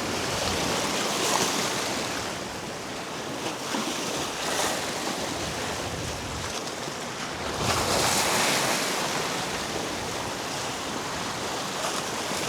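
Surf washing against the rocks of a jetty, with wind on the microphone: a steady rushing hiss that swells now and then, most strongly about eight seconds in.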